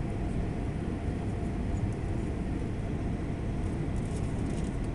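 Steady low rumble inside a jet airliner's cabin on final approach, from the engines and the airflow over the wing with its flaps extended.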